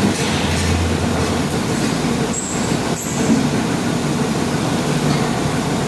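Rotary dairy milking platform running: a steady, continuous mechanical noise.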